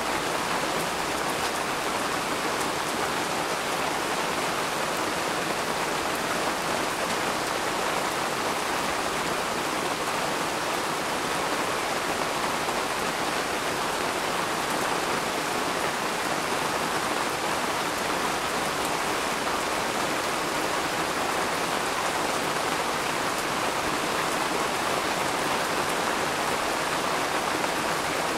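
Steady rain falling, an even hiss that holds level throughout with no thunder.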